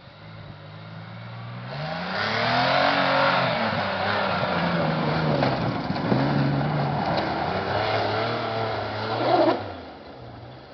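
Isuzu Bighorn SUV engine revving hard under throttle, its pitch rising and falling repeatedly as the tyres churn through deep snow. It grows loud about two seconds in and drops off sharply near the end.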